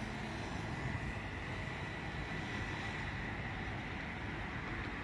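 Steady engine rumble from a distant airliner and passing road traffic, with a faint high whine coming in about a second and a half in.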